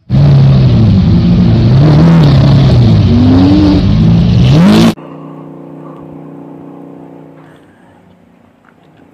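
Lamborghini supercar engine running loud and revving, its pitch rising and falling and climbing near the end, then cutting off abruptly after about five seconds. A much fainter steady hum follows and fades away.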